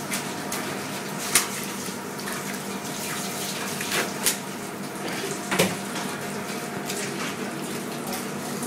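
A filleting knife working through a flathead on a plastic cutting board, giving a few sharp clicks and knocks of the blade, over a steady rushing background noise with a low hum.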